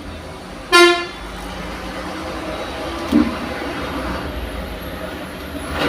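A single short vehicle horn toot about a second in, over the steady low rumble of road traffic going by.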